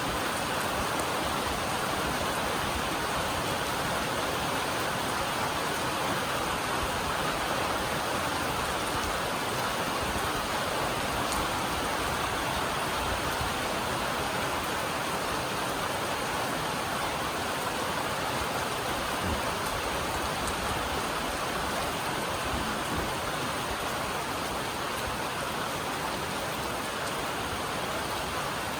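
Steady heavy rain drumming on a metal roof, an even wash of noise with faint scattered drop ticks.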